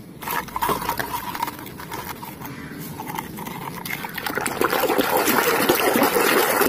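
Water splashing and sloshing as a muddy plastic toy tractor is rubbed and swished clean by hand, growing louder in the second half as it is plunged into the water.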